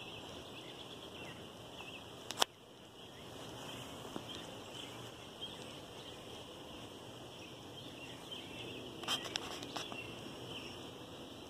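Faint backyard outdoor ambience with scattered small bird chirps over a steady high hiss, broken by one sharp click about two and a half seconds in and a quick cluster of clicks about nine seconds in.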